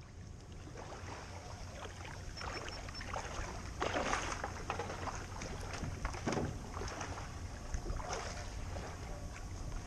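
Small waves lapping and slapping against a plastic kayak's hull, with wind rumbling on the microphone. The sound fades in from silence, with a few louder splashes, the strongest about four seconds in.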